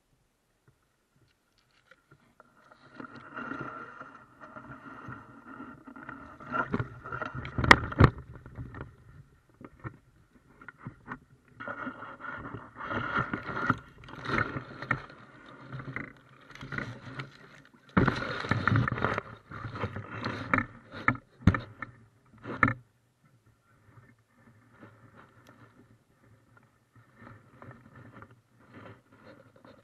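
Water splashing and sloshing at the river's edge, in irregular spells, with scraping and several sharp knocks from the landing net and tackle being handled. It ends in quieter rustling in the grass.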